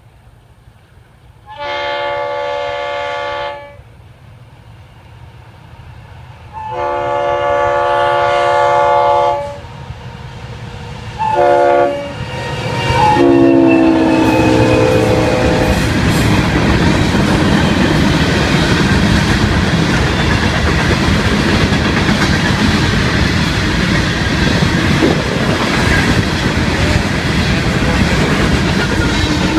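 Locomotive air horn sounding two long blasts, a short one and a long one, the grade-crossing signal; the last blast drops in pitch as the lead locomotive passes. Then the loaded rock train rolls by with a loud, steady rumble and wheel clatter.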